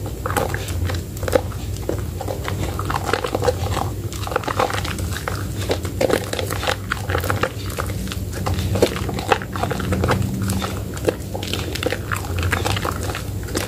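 Soaked Medicare White soap lather squelching and popping as it is squeezed and kneaded by hand in a basin of foam, a continuous run of short wet crackles and pops.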